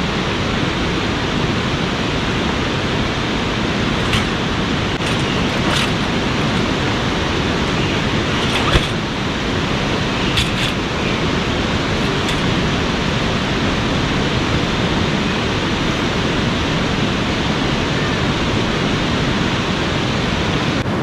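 Steady rush of a fast-flowing river, with a few sharp clicks and knocks from the metal frame of a folding camp cot being unfolded and set up.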